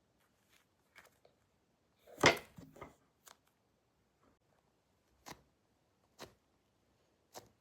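Packaging being handled during an unboxing: a few short separate rustles and crinkles, the loudest a sharp crackle about two seconds in, then a couple of lighter ones spaced a second or so apart.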